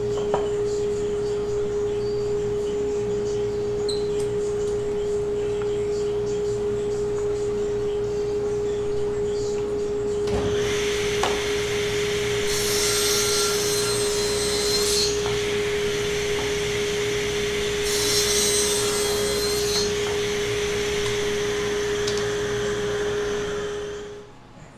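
Table saw running with a steady whine, then cutting a walnut-faced, 1-inch Baltic core plywood board from about halfway in, with two louder stretches as the blade passes through the wood. The sound cuts off near the end.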